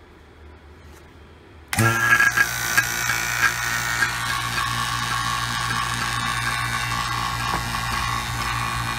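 Pittsburgh 3 CFM two-stage vacuum pump switched on, starting abruptly a little under two seconds in and then running steadily with a low hum as it pulls vacuum on the gauges; with its Royal Purple oil worked through it, it sounds healthy.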